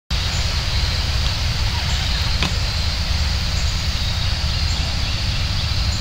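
Outdoor ambience dominated by wind buffeting the microphone, a steady fluctuating low rumble, with a steady high-pitched hiss above it and a single sharp click about two and a half seconds in.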